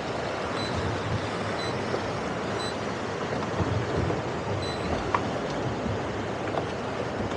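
Steady wind buffeting the microphone over waves and surf around an idling towboat, with faint short high beeps about once a second.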